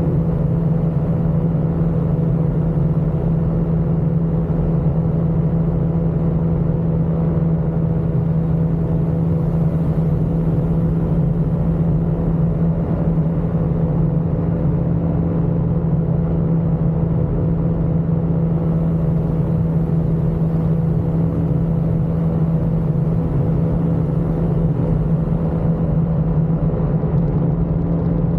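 Ultralight aircraft engine and propeller running steadily in flight, one constant pitch with no change in speed.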